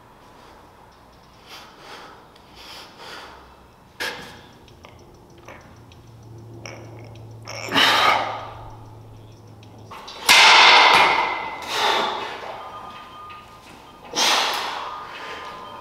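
A man breathing out hard in four loud puffs a couple of seconds apart, each swelling and fading, while bracing to flex and to bench press. A single sharp click comes about four seconds in.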